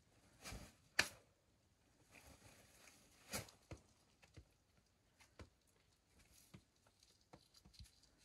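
Faint, scattered taps and scuffs of a climber's shoes and hands on the rock as he pulls onto an overhanging boulder and moves up it, the sharpest knock about a second in.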